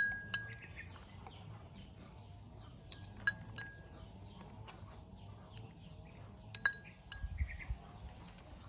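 Tableware clinking: a few sharp clinks, each ringing briefly, one near the start, two about three seconds in and two more near seven seconds.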